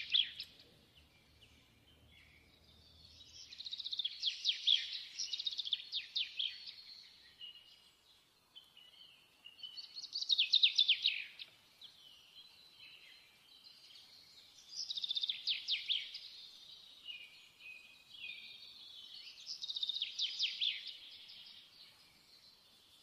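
A small songbird singing in four phrases of two or three seconds each, each full of rapid high trills, with short pauses between.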